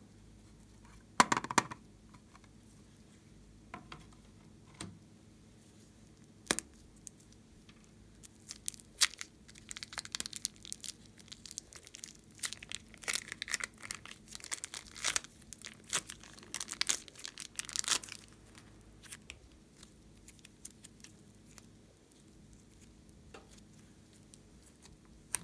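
Hand-handling sounds: a sharp plastic crackle about a second in as an eyeshadow palette case is handled, a few single clicks, then a long run of small crackles and crinkles as a red lump is squeezed and pulled apart in the fingers, stopping at about eighteen seconds.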